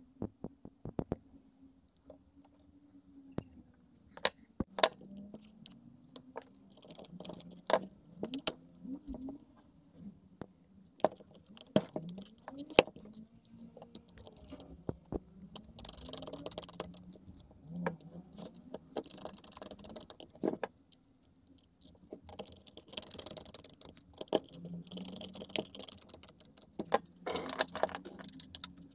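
Clicks and knocks of a screwdriver and plastic parts being handled while an angle grinder's brush holders and plastic housing are put back together, with several bursts of scraping in the second half as screws are driven into the housing.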